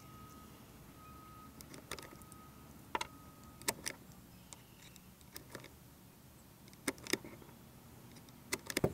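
Small, sharp metallic clicks at irregular intervals as .22 rounds are pressed one at a time into the Ruger Charger's 15-round magazine, with a quick run of clicks near the end.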